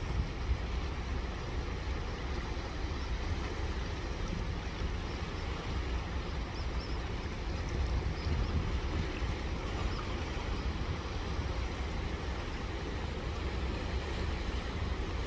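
Steady sea noise at the shore: surf and wind making a continuous low rumble with no distinct events.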